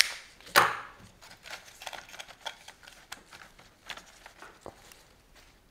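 Flower stems being cut and handled: a sharp snip about half a second in, then scattered light clicks and rustles of stems.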